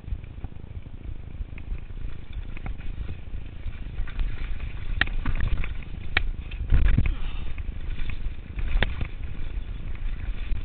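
Turner DHR downhill mountain bike rolling fast over a rough dirt trail: a steady low rumble of wind and tyre noise on the chest-mounted camera's microphone, with scattered sharp clicks and rattles from the bike over bumps, heaviest about two-thirds of the way through.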